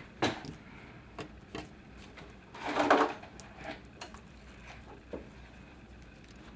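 Paper and a plastic page protector being handled and pressed on a tabletop: soft taps and rustles, with one louder, longer rustle about three seconds in.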